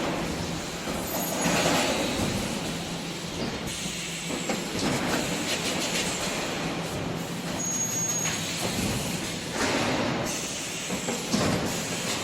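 Industrial machinery of a 3D wire-mesh EPS panel production line running: a steady mechanical clatter with a low hum, swelling louder every few seconds.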